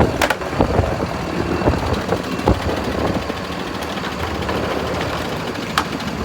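A vehicle's engine running at a slow crawl as it rolls forward over a torque wrench, with a few sharp clicks and knocks, one near the start and one near the end.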